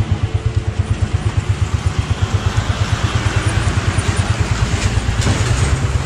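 Motorcycle engine idling with a steady, even low beat of several pulses a second.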